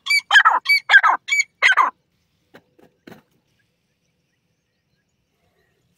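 Grey francolin (teetar) calling: a quick run of about six loud notes in the first two seconds, followed by a few faint ticks.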